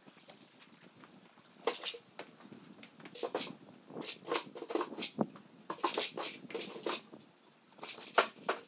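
Irregular rustles, clicks and knocks of horse tack being handled: a leather saddle and its quilted saddle pad are taken off a horse and set on a wall rack.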